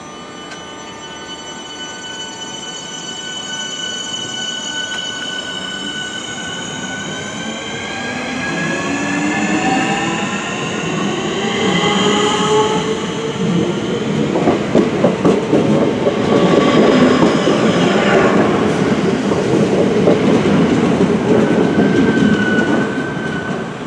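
Southeastern electric multiple-unit train pulling away, its traction motors giving a whine that rises steadily in pitch as it gathers speed. After about half the time this gives way to a louder rumble with rapid wheel clicks as the carriages run past, easing off near the end.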